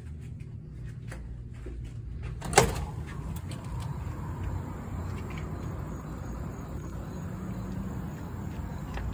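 Steel exit door's push-bar latch clacks once, sharply, as the door is pushed open about two and a half seconds in; a steady outdoor background hiss follows.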